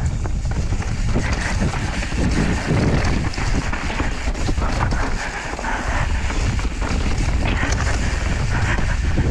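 Wind rushing over the action camera's microphone as an enduro mountain bike descends a dirt trail at speed, with the tyres rolling over dirt and roots and the bike clattering over bumps.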